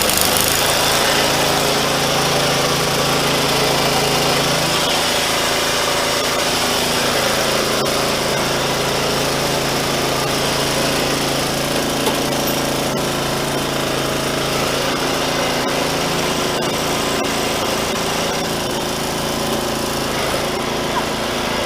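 Riding lawn mower's small single engine running steadily close by, its note shifting slightly about five seconds in.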